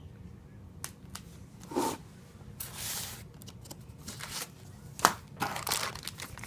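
Packaging being handled: plastic crinkling and rustling, with scattered clicks and a sharp knock about five seconds in.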